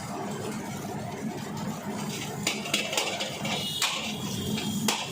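Kitchen cooking noise: a steady low hum, with a few sharp metal clinks of utensils or pans in the second half.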